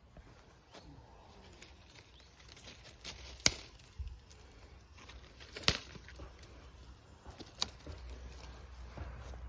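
Three sharp knocks or clicks, roughly two seconds apart, with a few fainter ticks between them over a faint low background.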